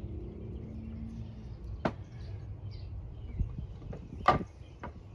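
A few sharp hard knocks and clicks from bamboo being handled, the loudest a little past four seconds in, over a low rumble of handling and outdoor noise.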